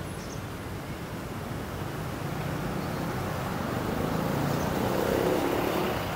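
Street traffic: a vehicle driving past, getting louder to its loudest about five seconds in, then easing off.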